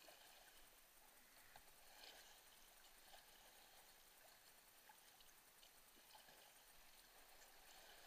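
Faint water sounds of a kayak paddle dipping in calm creek water, with a few light splashes and drips.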